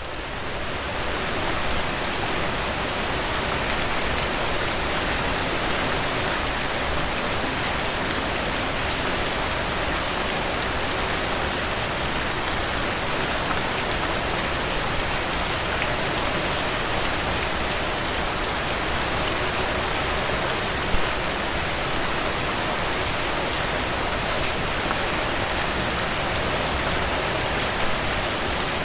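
Steady rain falling, a dense even hiss with many small drop patters on a surface, fading in at the start.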